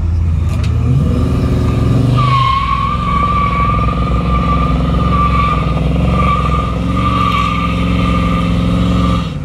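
Dodge Charger Scat Pack's 6.4-litre HEMI V8 running at low speed as the car rolls slowly by. Its note rises briefly about a second in, then holds steady. A steady high whine sits over it from about two seconds in until near the end.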